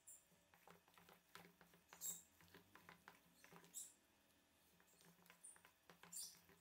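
A utensil stirring thick chicken siomai filling with starch in a stainless steel bowl: faint, irregular clicks and scrapes against the metal as the starch is worked in.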